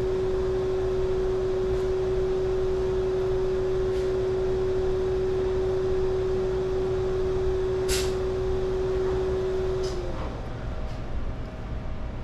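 A steady machine hum that drops in pitch and dies away about ten seconds in, like a motor being switched off. A sharp click comes shortly before eight seconds.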